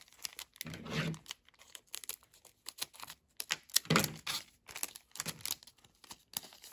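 Yu-Gi-Oh! trading cards being handled and set down onto piles on a cloth playmat: an irregular run of light taps and clicks, with a few softer thumps, about one second in, around four seconds in and again a little after five seconds.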